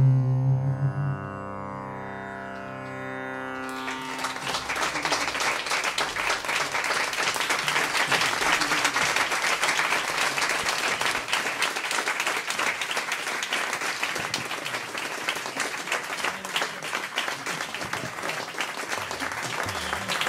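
Final sitar note ringing and fading away, followed about four seconds in by audience applause that carries on steadily.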